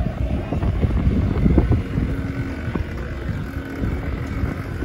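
Low, uneven rumble of a spinning children's airplane fairground ride, with wind buffeting the microphone.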